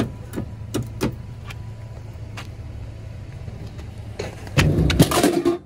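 Pepsi drink vending machine vending a can: a steady mechanical hum with several sharp clicks, then a loud clatter near the end as the can drops into the delivery bin.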